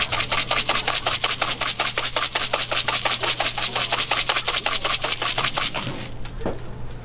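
Chocolate chips rattling in a handheld shaker that is shaken rapidly over a waffle, about seven shakes a second, stopping about six seconds in. A steady low hum lies underneath.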